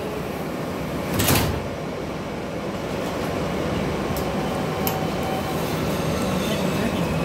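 R160 subway car doors sliding shut with a thud about a second in. The car's low rumble follows, growing slowly louder as the train starts to pull out.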